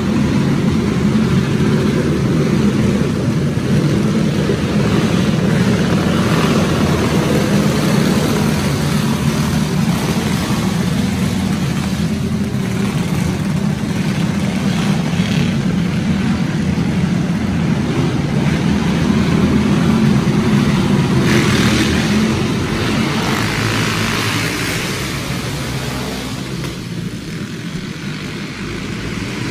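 Several racing go-kart engines running together on a dirt track, a steady drone that eases off a little near the end.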